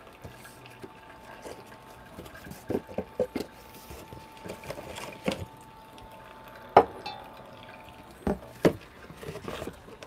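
Xbloom coffee machine pouring a thin stream of hot water onto coffee grounds in a paper filter, with coffee dripping into the glass carafe and a faint steady hum from the machine. Several sharp knocks of glassware being set down, the loudest about seven seconds in.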